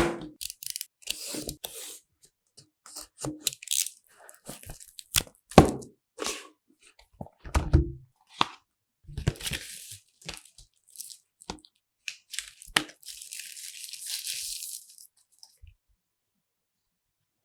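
Smartphone packaging being opened and handled: plastic wrap tearing and rustling, with scattered sharp clicks and knocks of cardboard and plastic parts.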